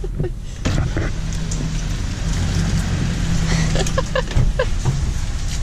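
Car engine hum and wet road noise heard from inside the cabin as the car pulls away, with a steady hiss of rain and spray.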